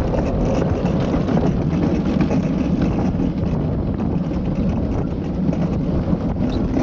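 Luge cart's wheels rolling at speed down a concrete luge track, a steady loud rolling noise.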